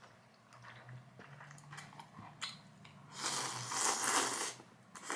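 A person slurping instant ramen noodles in one long, loud slurp about three seconds in, with faint chewing and small clicks before it.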